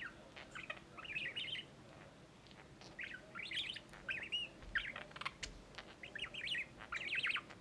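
Budgerigars chattering: quick bursts of warbling, twittering chirps with short pauses between them.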